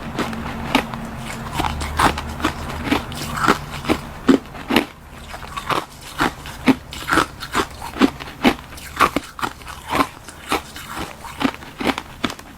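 Close-up crunching of ice being bitten and chewed: the ice is tartary buckwheat tea frozen in the shape of a glove. Sharp crisp cracks come steadily, about two or three a second.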